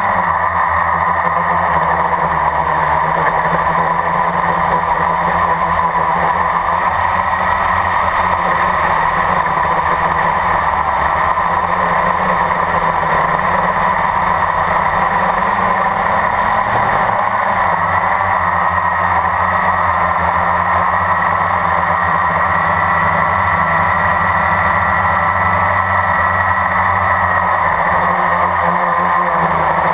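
Blade 350 QX quadcopter's brushless motors and propellers, heard close up through its onboard camera: a steady, loud whir and buzz. The pitch shifts a little about halfway through as the throttle changes.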